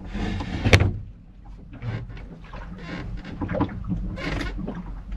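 A sharp click about three-quarters of a second in, then scattered knocks and rustles of handling, over a steady low hum.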